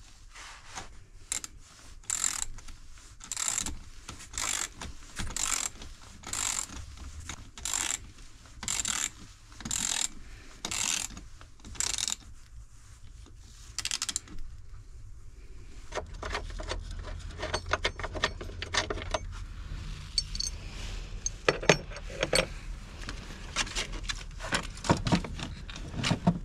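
A hand ratchet being worked back and forth, a burst of clicking about twice a second, then stopping. About halfway through, a steady low rumble comes in with scattered clicks and knocks of parts being handled.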